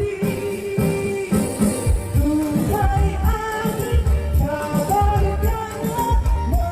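A song playing: a singing voice holding and bending notes over a steady bass-heavy beat with shaker percussion.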